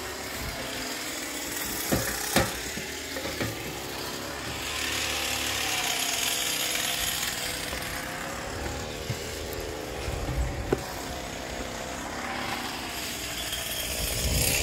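Aluminium ladder knocking and clanking as someone climbs it, a few sharp knocks about two to three and a half seconds in, over steady outdoor mechanical background noise.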